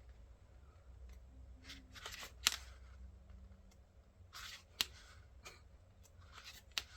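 Paper handling: short rustles and a few sharp taps and clicks as the pages of a printed diary booklet are turned and handled.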